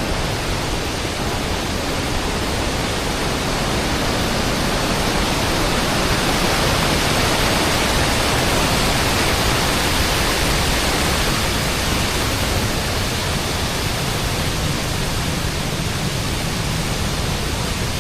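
Large waterfall in heavy flow: a steady rush of falling water that swells slightly in the middle.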